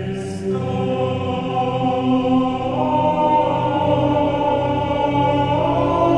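Background choral-style music: voices holding long notes over a steady low drone, the chord shifting about three seconds in and again near the end.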